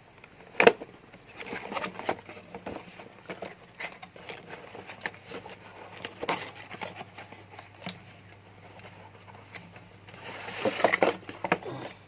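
Cardboard packaging of a CPU air cooler being opened and handled: rustling, scraping and small knocks, with a sharp knock about half a second in and a busier stretch of scraping near the end as the cooler is lifted out of its box.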